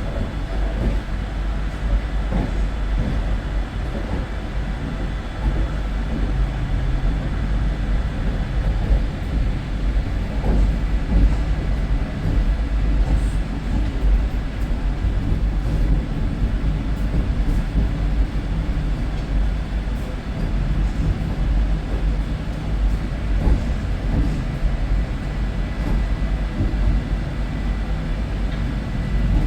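Vande Bharat Express train running: a steady, continuous rumble, heaviest in the deep bass, with no distinct clicks or pauses.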